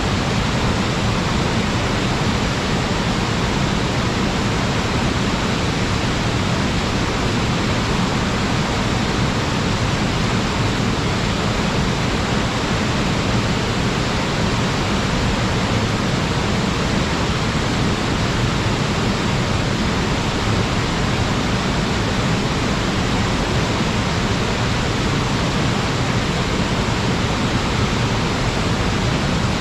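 Waterfall swollen with typhoon floodwater, pouring and churning into its pool in a steady, dense rush with a strong low rumble.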